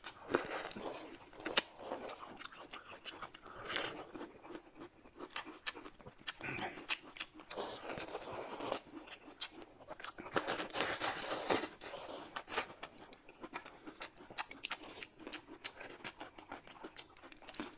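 Close-up eating sounds: wet chewing and lip smacking with many small clicks, and long noisy slurps of flat noodles being sucked in, loudest about eight and eleven seconds in.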